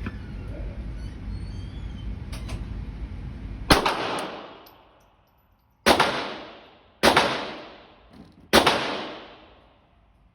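Four handgun shots, each a sharp crack followed by about a second of echoing decay. The first comes a little under four seconds in, after a steady low rumble, and the others follow over the next five seconds at uneven gaps of one to two seconds.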